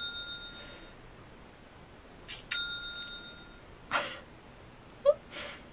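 New-order notification chime for incoming shop sales, a cash-register style ring, twice: one ringing out at the start and another about two and a half seconds in, each fading over about a second. A short laugh comes between the second chime and the end.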